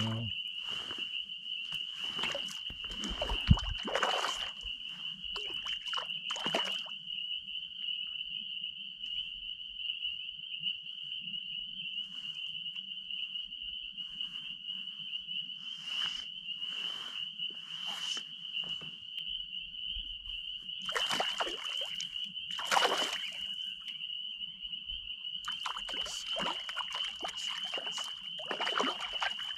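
Steady high-pitched frog chorus, with a hooked brook trout splashing at the surface in scattered bursts, heavier near the end. There is one sharp knock about three and a half seconds in.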